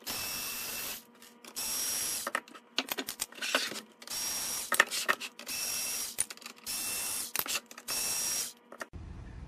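Cordless electric screwdriver backing screws out of a metal light housing, running in six short bursts of under a second each with a steady whine. Sharp metallic clicks and rattles come between the runs.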